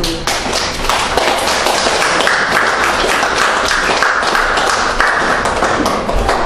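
Audience applauding: many hand claps in a dense, steady patter.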